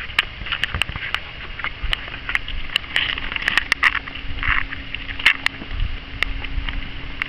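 Footsteps on asphalt at a walking pace, with irregular sharp clicks and scuffs over a steady background hiss.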